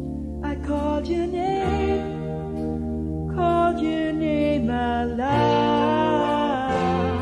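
Recorded 1980s-style rock band song: a melody line that bends and glides in pitch over held chords and bass notes, growing fuller about five seconds in.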